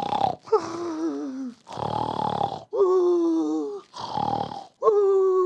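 A man imitating loud snoring with his voice: three drawn-out snores, each a rasping in-breath followed by a voiced, groaning out-breath.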